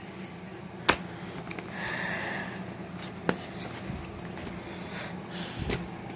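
DVD box sets being handled and moved about: a few sharp clicks and taps, a short soft rustle, and a dull low knock near the end.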